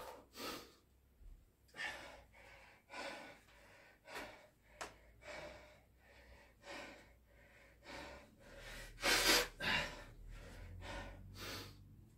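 A man panting hard, with quick, heavy breaths in and out and two louder gasps about nine seconds in. He is out of breath from a set of push-ups at the end of a burpee and kettlebell-thruster round.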